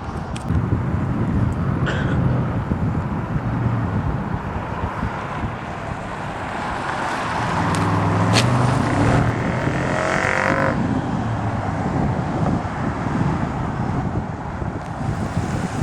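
A 5.7 Hemi V8 running through shorty headers and a true dual exhaust with Dynomax Ultra Flow mufflers and no catalytic converters: a steady low exhaust rumble. About eight seconds in, the sound grows stronger and higher for a few seconds, then settles back.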